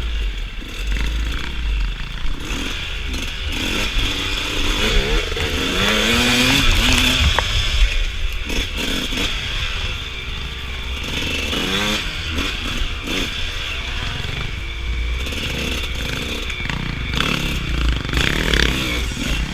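Suzuki RM125 125cc two-stroke dirt bike engine revving hard, its pitch climbing and dropping again and again as the throttle is worked through tight off-road woods trail, with a low rumble of wind on the microphone.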